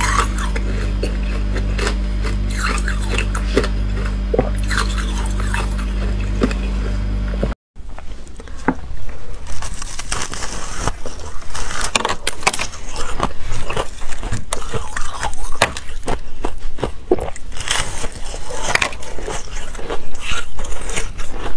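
Close-miked crunching and scraping of teeth biting and chewing hard ice, crisp crackles in quick irregular clusters. For the first several seconds a steady low hum with a slow pulsing beat runs underneath. It cuts off abruptly, and the biting continues on frosty ice frozen inside a plastic bottle, denser and louder.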